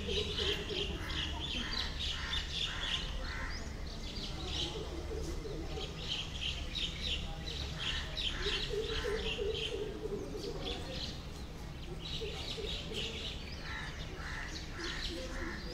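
Birds chirping in repeated runs of short, quick notes, over a murmur of voices and a steady low rumble.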